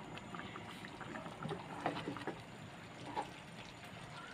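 Butter tempering (tadka) with whole dried red chillies, curry leaves and cumin sizzling faintly in a small pan, with a few light ticks and crackles.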